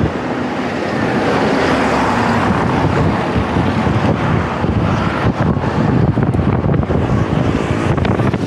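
Heavy wind noise buffeting the microphone of a rider on a moving road bike.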